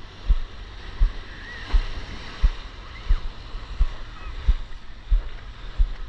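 Shallow surf swishing around a wader's legs, with faint voices of other people in the water and a regular dull thump about three times every two seconds.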